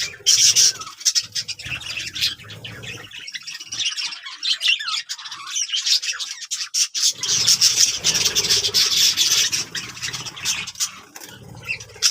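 Several birds chattering and squawking, with rapid, overlapping calls.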